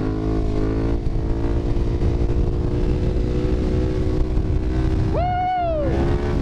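KTM 1290 Super Duke GT's V-twin engine, running a remapped ECU, pulling steadily at speed. Its pitch climbs a little in the first second, then holds. About five seconds in, the rider lets out a drawn-out yell that lasts under a second.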